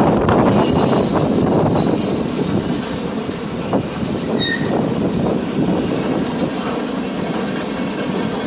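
Freight train cars rolling past, a steady rumble of steel wheels on rail, with brief high wheel squeals about a second in and again about four and a half seconds in.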